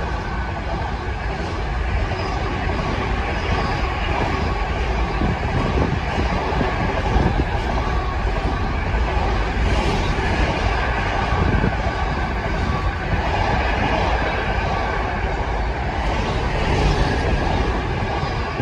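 Intermodal container wagons of a freight train passing at speed: a steady, loud rumble and clatter of wheels on the rails.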